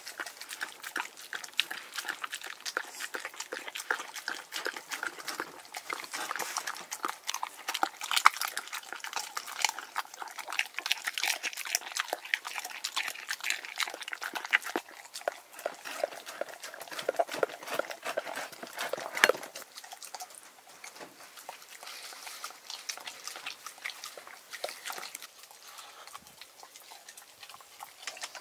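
A dog eating a wet minced raw-fish mixture from a glass bowl, with quick wet chewing, smacking and lapping clicks. The eating is busiest for about the first twenty seconds and sparser and quieter after that.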